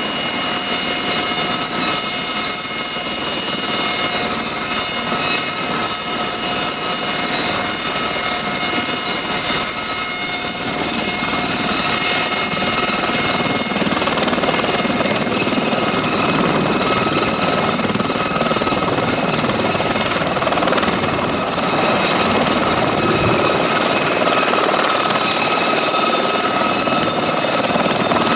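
Aérospatiale Gazelle helicopter's Turbomeca Astazou turboshaft running with a steady high-pitched turbine whine over the noise of the turning rotor. The rotor noise grows fuller in the second half as the helicopter lifts into a low taxi hover.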